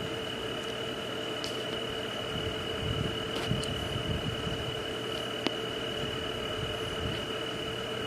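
Night nature ambience: a steady high-pitched tone over a lower steady hum, with low irregular pulsing and a few short sharp chirps, the sharpest about five and a half seconds in.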